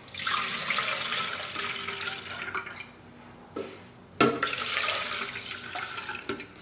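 Water pouring into the 2.6-litre tank of an ultrasonic cool mist humidifier, in two spells with a short break about halfway through.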